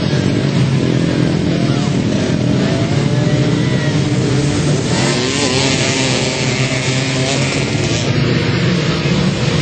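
A pack of racing ATVs running together, many engines revving and accelerating at once, with pitches rising and falling as the quads pull away.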